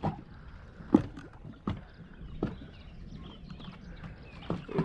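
Small waves slapping against a small boat's hull in irregular knocks, about one every second, over a low rumble of wind on the microphone.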